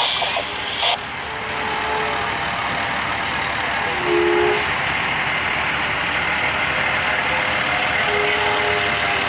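Fire trucks driving slowly past at close range, their diesel engines running steadily, with a hiss of air brakes near the start and a brief toot about four seconds in.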